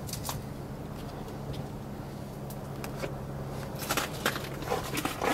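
Scrapes and small clicks of boots and hands on rock as a person scrambles up a rocky gully, over a steady low hum; the clicks and scuffs grow busier near the end.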